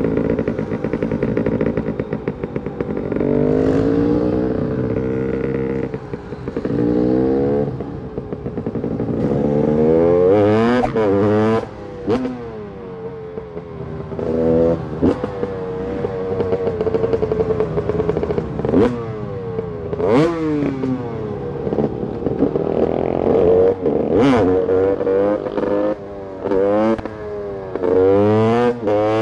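Two-stroke motorcycle engine revving over and over, its pitch climbing and dropping with each blip of the throttle, with a few sharp cracks along the way.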